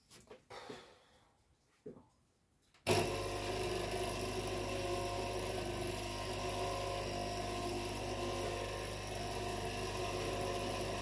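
A few short handling knocks, then about three seconds in a small electric motor switches on and runs with a steady hum.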